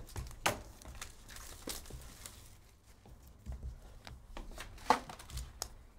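Hands opening a cardboard trading-card hobby box and lifting out its wrapped packs: cardboard and wrapper handling with scattered light rustles and clicks, and sharper snaps about half a second in and near five seconds.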